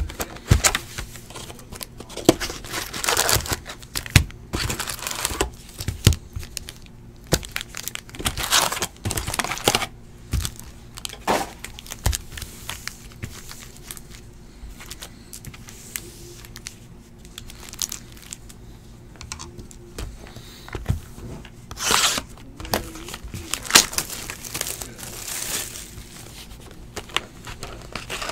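Trading-card hobby boxes being torn open and foil-wrapped card packs crinkling as they are pulled out, handled and stacked: irregular rustles and tears with sharp clicks and taps, louder bursts around the third, ninth and twenty-second seconds.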